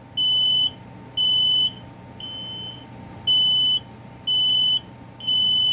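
Kidde P3010L hardwired ionization smoke alarm sounding its test alarm: loud, high-pitched beeps of about half a second each in the three-beep temporal pattern, with a fainter beep falling in each pause.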